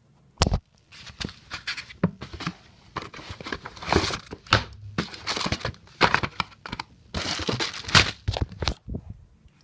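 Takeout food packaging being handled and opened: irregular crinkling, rustling and tearing of paper and cardboard, with a thump about half a second in.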